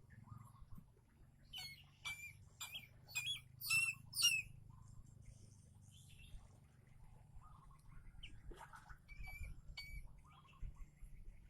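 Eagle chick calling with a quick series of about six high-pitched chirps, each dropping in pitch, a couple of seconds in. A few more chirps follow later.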